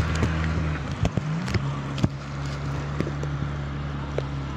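An engine runs at a steady speed and shifts pitch about one and a half seconds in, over a constant hiss of water. Scattered clicks and knocks sound over it, the sharpest about two seconds in.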